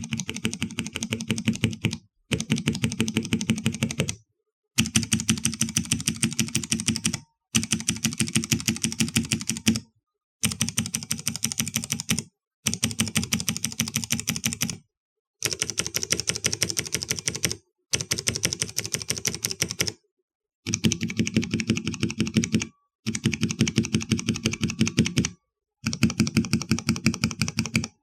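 Cherry MX mechanical keyboard switches on a switch tester, pressed rapidly over and over. The result is a run of short bursts of fast clicking, each about two seconds long, cut one after another with brief silences between. Each burst is a different switch type being sound-tested in turn.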